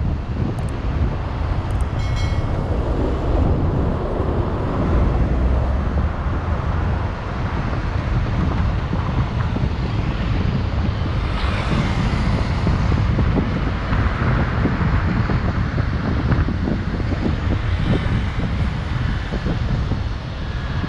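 Road and engine noise of a car driving along a city street, a steady low rumble with wind buffeting the microphone. A brief high chirp sounds about two seconds in.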